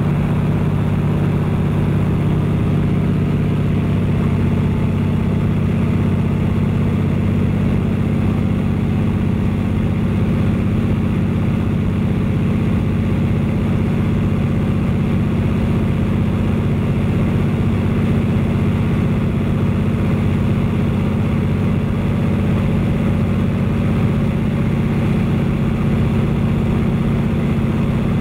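De Havilland Canada DHC-2 Beaver's nine-cylinder Pratt & Whitney R-985 radial engine and propeller running at steady cruise power, heard from inside the cockpit as an even, low drone.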